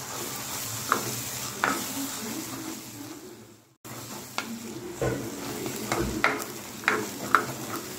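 Masala sizzling in oil in a clay pot while a spatula stirs it, scraping and knocking against the pot. The sound cuts out for a moment a little before four seconds in, and the spatula knocks come more often after that.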